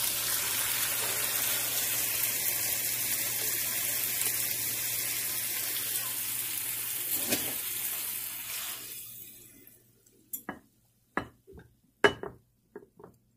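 Mutton chop curry sizzling steadily in a hot pan, fading away about nine seconds in. Then a handful of short knocks and scrapes of a wooden spoon against the pan as the curry is scooped onto a serving platter.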